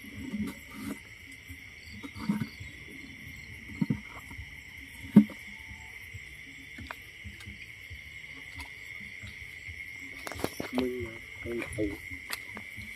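Steady chorus of night crickets trilling, with scattered short knocks and rustles close by, one sharp knock about five seconds in.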